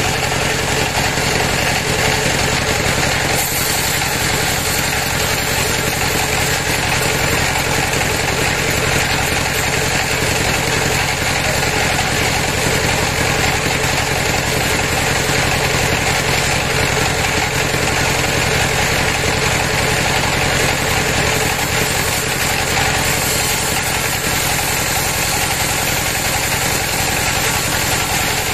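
Band sawmill running steadily, its blade ripping lengthwise through a large timber slab; an unbroken mechanical drone with the hiss of the cut on top.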